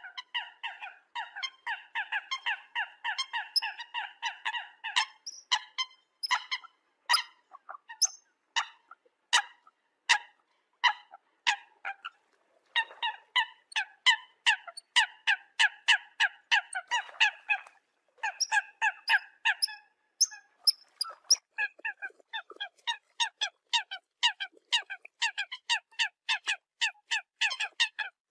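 Eurasian coot calling: rapid runs of short, repeated calls, several a second, broken by brief pauses, with a stretch of sharper single notes in between.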